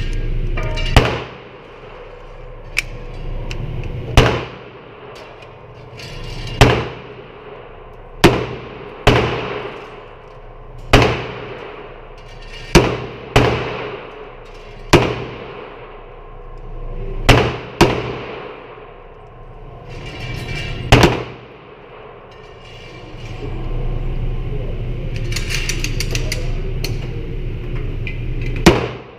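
Gunshots at a shooting range: about fourteen single shots at irregular intervals, each sharp crack followed by a short ringing echo.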